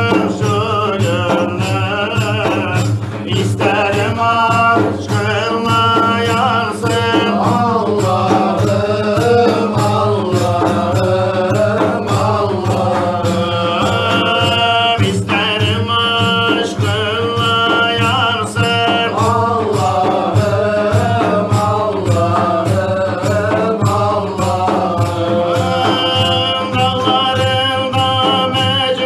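Group of men chanting a Turkish Sufi ilahi hymn together, accompanied by steady beats on frame drums.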